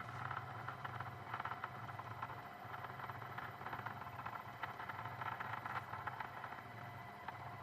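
2M2 Tank2 Pro CNC key cutting machine scanning the tracks of a laser key: a faint, steady motor hum with light, irregular ticking as the probe moves along the key.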